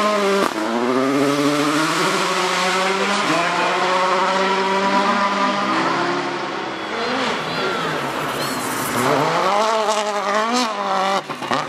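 Rally car engine revving hard, its pitch rising and falling again and again through gear changes and lifts, over a steadier lower engine note in the first half. The sound drops out briefly near the end.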